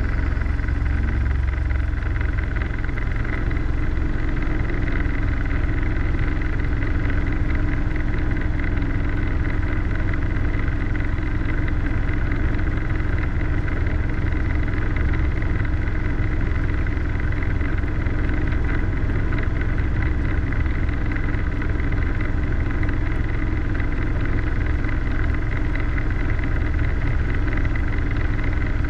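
Robinson R22 helicopter's piston engine and rotors running steadily at hover power, heard from inside the cockpit as it hover-taxis. A strong low drone with a thin steady high tone above it, unchanging throughout.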